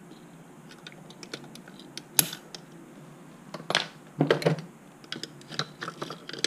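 Light clicks and clatters of hand tools against a plastic chainsaw recoil starter housing and the tool-strewn bench as a screwdriver is worked into the housing. There is one sharp click about two seconds in, and a busier clatter around four seconds as another screwdriver is picked up from among the tools.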